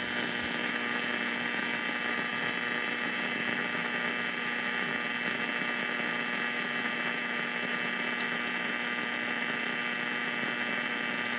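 A steady hum made of several fixed tones that never change in pitch, cutting off suddenly at the end.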